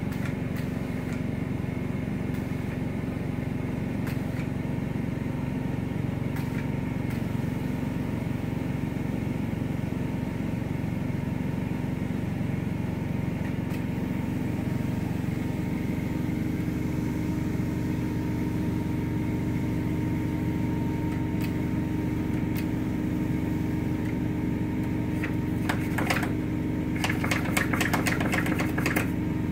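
Steady drone of a truck-mounted carpet cleaning machine's engine running. Near the end come a series of short hissing sprays from a hand sprayer applying pre-spotter to the fabric.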